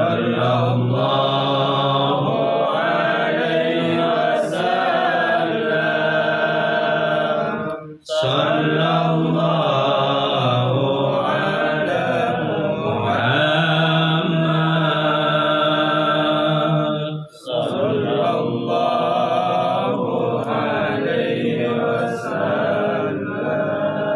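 Arabic devotional chanting of a sholawat praising the Prophet Muhammad, sung in long, drawn-out notes that slide up and down. There are short breaks for breath about 8 and 17 seconds in.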